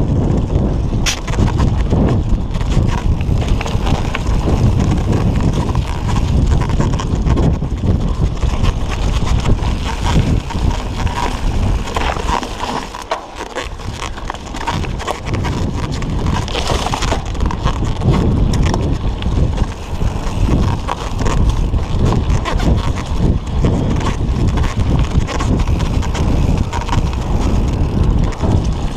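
Mountain bike riding fast down a dirt singletrack: tyres rumbling over the trail and the bike rattling over bumps, with wind buffeting the microphone. The rumble eases briefly about halfway through.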